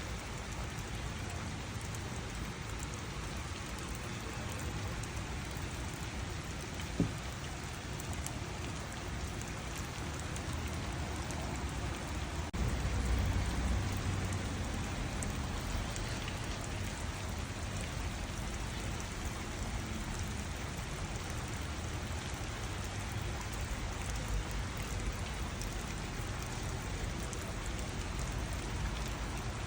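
Steady rain falling in a garden, an even hiss with scattered individual drops ticking. A single sharp tap comes about seven seconds in, and a low rumble swells briefly around the middle.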